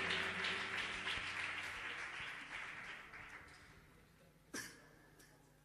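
Congregation's applause and clapping dying away over about four seconds, followed by a single short knock about four and a half seconds in.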